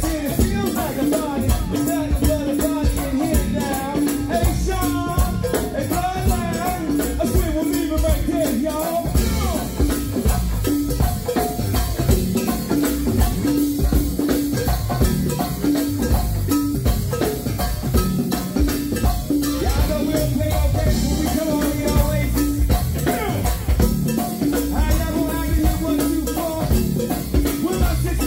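Live go-go band playing: drum kit and a steady shaken tambourine rhythm under guitar and bass, with vocals over the groove.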